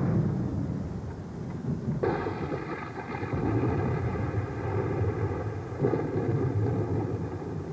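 A low rumble, with a steady drone of several held tones coming in about two seconds in.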